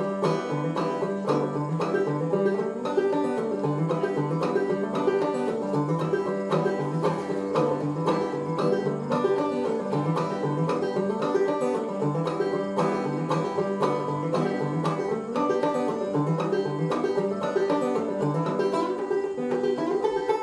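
Solo banjo played clawhammer style in standard G tuning: an old-time tune with a brisk, steady run of plucked notes.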